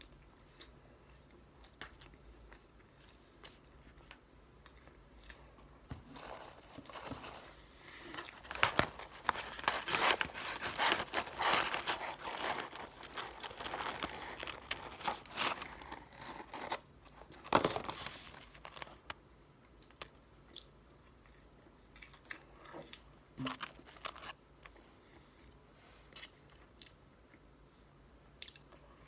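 Close-up eating of McDonald's french fries: faint chewing and mouth clicks. In the middle comes a louder stretch of paper crinkling and rustling, as the fries carton is handled and tipped out, ending in one sharp crackle.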